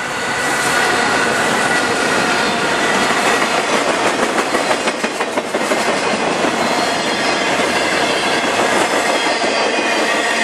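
Norfolk Southern freight train passing close by: the diesel locomotives go by at the start, then the intermodal flatcars carrying truck trailers roll past with wheels clacking over rail joints, loudest in a quick run of clicks a few seconds in, under a steady high wheel squeal.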